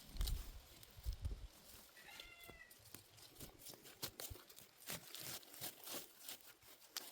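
Weeds being pulled by hand from wet garden soil: a run of crackling, rustling and snapping of stems and leaves, with two soft thumps in the first second. About two seconds in, a short animal call, possibly a cat's meow.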